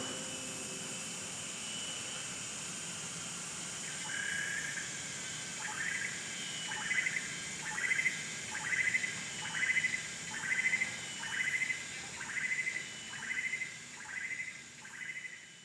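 Tropical rainforest ambience: a steady high insect drone, with the last guqin note dying away in the first second. From about four seconds in, an animal call repeats about twice a second, each call a short dip and rise in pitch, growing louder and then fading near the end.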